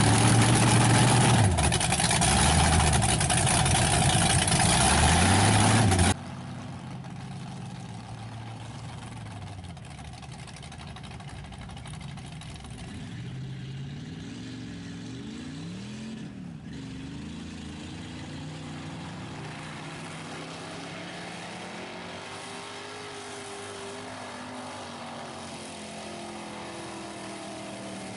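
Lifted mud truck on tractor tires, its engine revving loudly up and down close by. About six seconds in the sound cuts abruptly to the same kind of truck heard farther off, the engine revving up and down repeatedly as it churns through mud.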